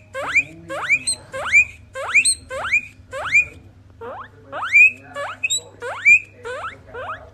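Guinea pig wheeking: a rapid series of loud, short squeals, each sweeping up in pitch, about one and a half a second with a brief break midway.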